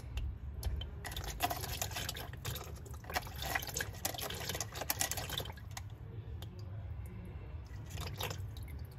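Automatic transmission fluid pouring and dripping in thin streams from the Mercedes 722.9 transmission pan's drain hole into a plastic drain pan, the last of the fluid running out now that the plastic level-fill tube inside has been knocked loose. The pouring is heaviest for the first five seconds or so, then lighter.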